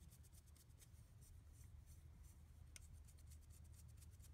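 Faint small clicks and rubbing of a hex driver turning a 16 mm countersunk screw through a carbon-fibre frame plate and arm, over a low steady hum.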